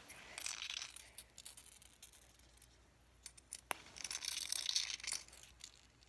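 Aerosol can of silly string sprayed in two short, uneven hissing bursts, the second longer, with sharp clicks of the nozzle before and between them.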